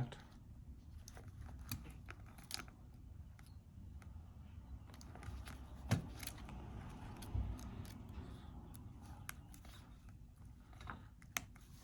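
Faint, scattered small clicks and taps of hands and tools working on an opened iPhone 14 Pro Max while the new screen's flex-cable connector is pressed onto the board, with one sharper click about six seconds in.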